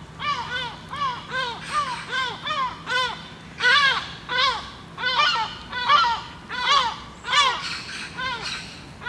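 Repeated warning calls of birds mobbing a perched Harris's hawk: short, harsh calls, each rising then falling in pitch, about two or three a second without a break.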